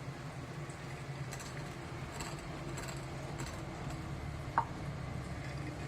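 A steady low hum with a few faint clinks and knocks, and one short, sharp click about four and a half seconds in.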